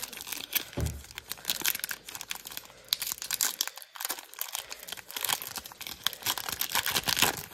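A foil hockey-card pack wrapper being torn open and crinkled by hand: a dense run of crackles, with a short lull a little past halfway through.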